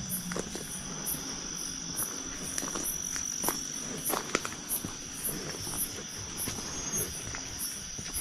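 Night insects, crickets among them, chirring: a steady high-pitched drone with a pulsing chirp repeating about twice a second. Scattered light clicks and rustles sound over it.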